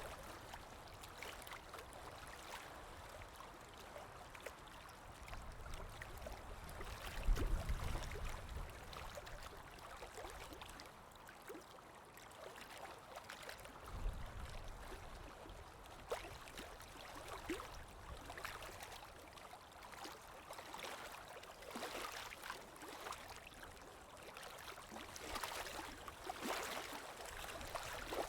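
Running water flowing steadily with many small splashes and drips. A low rumble comes about seven seconds in, and a shorter one around fourteen seconds.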